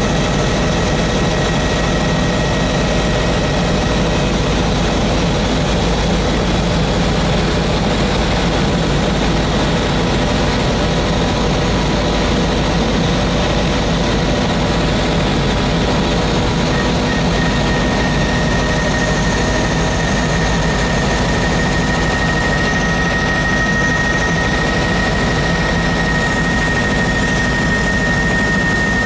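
Helicopter engine and rotor noise heard from inside the cabin in flight: a loud, steady drone with a high whine that grows stronger about two-thirds of the way through.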